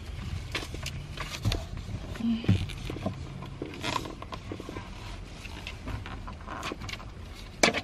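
A stitched steering wheel cover being handled and pressed against a car's steering wheel: scattered rubbing, scraping and small clicks, with one sharp knock near the end, over a low steady hum.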